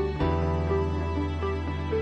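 Slow, gentle instrumental background music: sustained low bass notes under a melody of short single notes, with a new bass note coming in just after the start.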